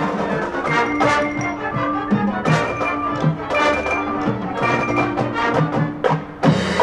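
High school marching band playing: held brass chords over drum strokes and ringing mallet-percussion notes. Near the end the sound briefly drops away, then the whole band comes back in on a loud hit.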